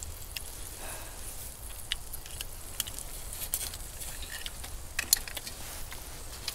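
Scattered sharp clicks and clinks of metal tongs and utensils against the shells and wire rack of a portable gas grill and against metal plates, over a faint steady hiss of shellfish sizzling.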